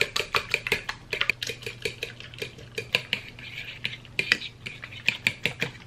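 Metal fork whisking beaten egg in a ceramic bowl, the tines clicking quickly and unevenly against the bowl.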